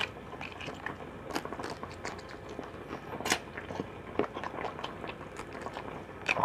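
A person chewing and eating shrimp: irregular small wet mouth clicks and smacks, with a couple of louder ones.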